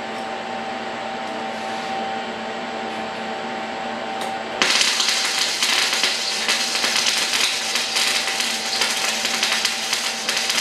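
A steady hum, then about four and a half seconds in an electric arc welder strikes up on the metal frame and keeps welding: a loud, steady crackling sizzle to the end.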